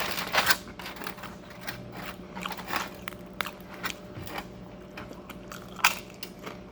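Close-up eating sounds: bites and chewing with sharp crunches and crackles, the loudest crunch about six seconds in, over a faint steady hum.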